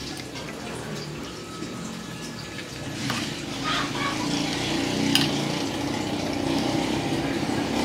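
Metal spoon clinking and scraping against a sauce bowl and a metal tray as chili sauce is spooned over cooked chicken, a few sharp clicks in the middle. Under it a steady hiss, and a low hum that grows louder in the second half.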